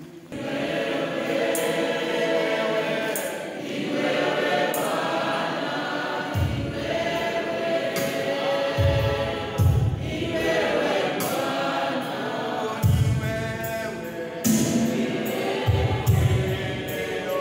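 Congregation singing a hymn together. Low beats come in about six seconds in and recur every few seconds, with sharp clicks over the top.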